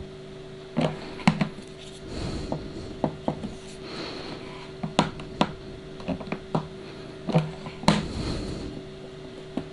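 Sharp clicks and light knocks from a handheld film densitometer as its measuring arm is pressed down onto the film step wedge and lifted again, about a dozen of them at uneven intervals. A steady low hum runs underneath.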